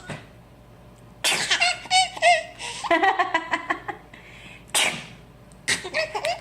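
A woman's fake sneeze about a second in, followed by a baby's high-pitched laughter; a second fake sneeze comes a few seconds later and the baby laughs again near the end.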